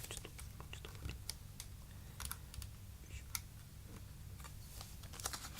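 Trading cards being handled, making scattered, irregular light clicks and taps.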